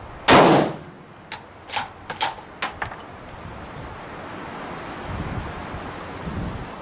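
A single .308 rifle shot from a bolt-action Thompson Center Compass, fired with a flash hider fitted, dying away in about half a second. It is followed by a quick run of sharp metallic clicks as the bolt is worked to eject the spent case and chamber the next round.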